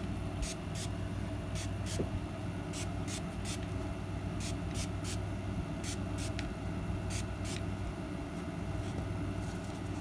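Pump-spray bottle of Heidi Swann Color Shine dye, lightly misting: about fifteen short hissing sprays, many in quick pairs, stopping about three-quarters of the way in. A steady low hum runs underneath.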